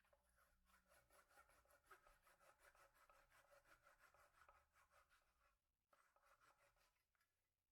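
Faint rapid rubbing strokes, several a second, thinning out about five and a half seconds in and fading near the end.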